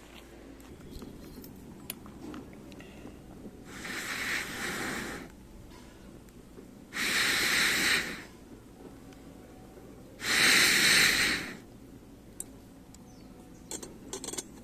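A person blowing three times onto a small twig fire to fan it, each breathy blow lasting about a second, the last two louder than the first.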